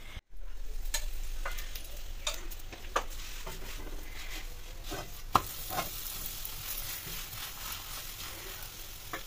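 Laccha paratha sizzling as it fries in a pan, with a few clicks and scrapes of a wooden spatula against the pan. The sharpest click comes a little past halfway.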